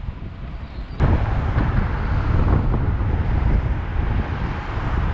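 Wind buffeting the microphone of a camera mounted on a moving bicycle, over the low rumble of city traffic. About a second in there is a click and the wind noise steps up suddenly and stays louder.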